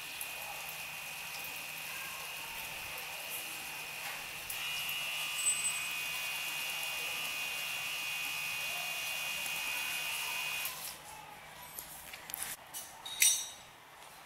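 Small electric water pump of a handheld portable bidet running as it sprays a jet of water: a steady high whine with spray hiss. The whine steps up louder about four seconds in and cuts off near the end, followed by a few handling clicks, one sharp.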